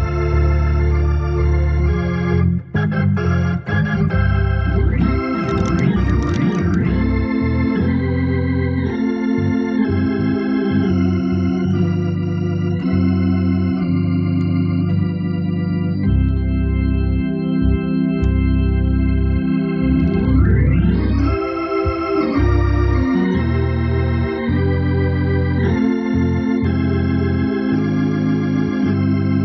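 Hammond organ playing sustained gospel chords over a strong bass line. About two-thirds of the way through there is a quick upward glissando.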